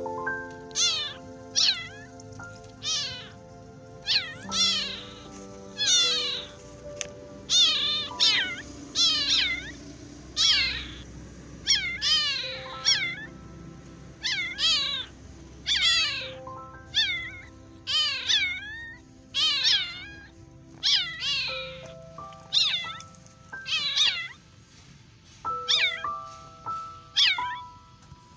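Young kittens meowing again and again, thin high-pitched cries that rise and fall, about one a second. They are crying for their mother, probably from hunger. Soft background music with bell-like notes plays underneath.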